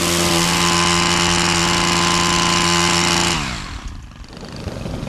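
Petrol pole saw's small engine running at high revs while it cuts old fronds from a palm. About three and a half seconds in the throttle is released and the engine note falls away to a quieter idle.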